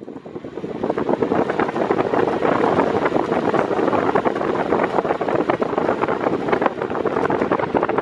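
Arno Silence Force 40 cm floor fan running at full speed, its airflow rushing and buffeting the microphone in a loud, steady whoosh; the loudness builds over about the first second and then holds steady.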